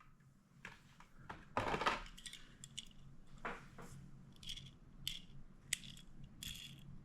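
Hands handling toy-car packaging and a small die-cast car: brief rustles and scattered light clicks and taps, the loudest rustle about a second and a half in.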